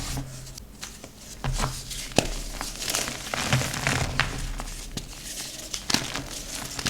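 Blocks of gym chalk being crushed and crumbled by hand: irregular crunching with many sharp snaps and crackles as the chalk breaks apart.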